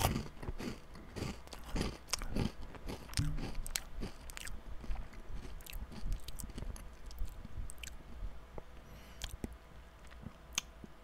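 Crunching and chewing of a puffed, fried rice cracker, close to the microphone: dense crisp crunches for the first few seconds, thinning to sparse crackles as it is chewed down.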